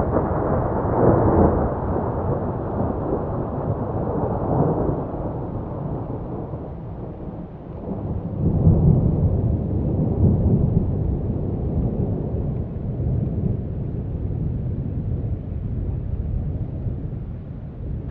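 Rolling thunder rumbling without a break, swelling louder about a second in, again around four seconds, and most strongly around nine to eleven seconds.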